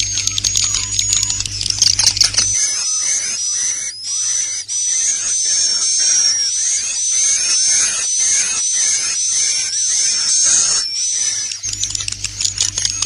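Recorded swiftlet calls: dense, high-pitched twittering chirps mixed with rapid clicking, the roosting ('inap') call played to lure swiftlets into a swiftlet house. About two and a half seconds in, a low hum drops out and the chirping turns more continuous; the hum and the earlier texture return near the end.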